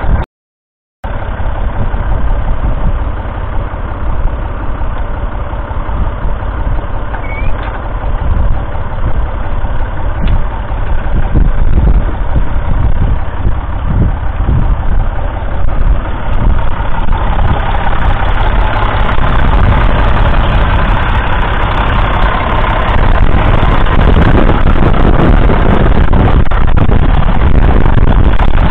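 1971 Massey Ferguson 135's 2.5-litre three-cylinder diesel engine running, heard up close. The sound drops out for a moment near the start. From about two-thirds of the way through it gets a little louder and fuller.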